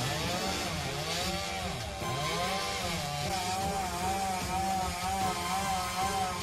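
Chainsaw running and cutting, its engine pitch rising and falling over and over as it revs and bogs in the wood.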